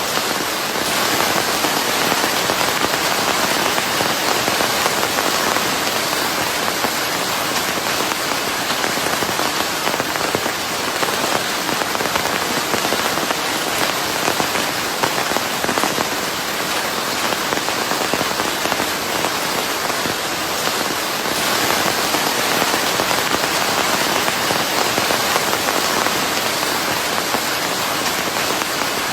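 Steady rain falling, a dense, even hiss of countless drops that swells slightly now and then.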